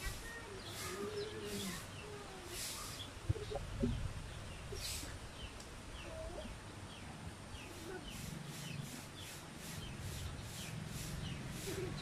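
Chickens clucking and small birds chirping repeatedly, with intermittent short scratchy noises.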